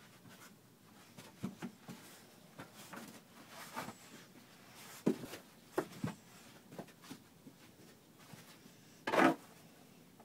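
Bouvier des Flandres puppy scuffling and rolling on a doormat over wooden deck boards: scattered soft knocks and thumps, with a louder short scuffle about nine seconds in.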